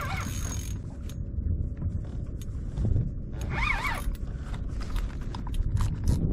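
Spinning reel being cranked under load from a hooked fish on a bent rod, its turning handle giving a run of small mechanical clicks and creaks over a steady low rumble.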